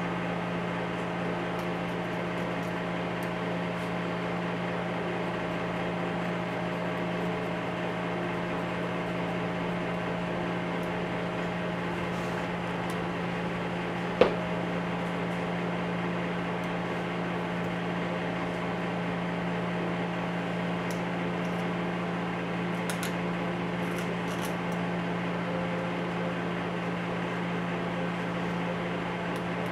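Steady machine hum, like a fan or air conditioner running, with one sharp tap about halfway through and a few faint light ticks later on from a hobby knife scraping a small aluminium carburetor body.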